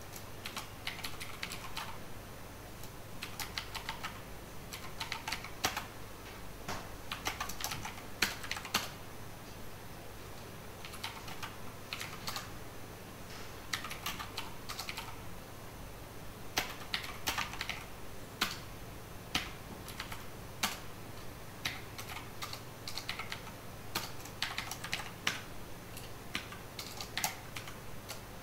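Computer keyboard being typed on: clusters of quick keystrokes with short pauses between them, as lines of code are entered.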